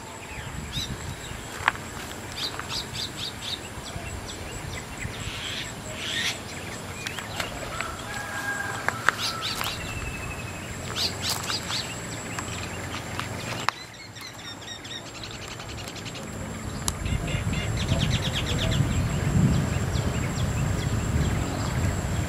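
Wild birds calling around the lake, a scatter of short chirps, trills and whistles, over a thin steady high whine. In the second half a low rumble of wind on the microphone builds up.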